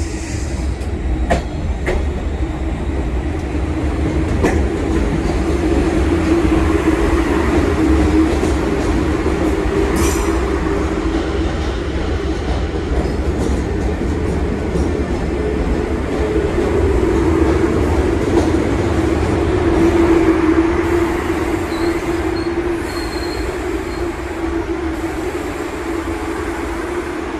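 Older MBTA Red Line subway train pulling in alongside the platform and slowing to a stop: a steady motor hum and the rumble of the cars rolling past, swelling twice and easing off near the end, with a few sharp clicks in the first ten seconds.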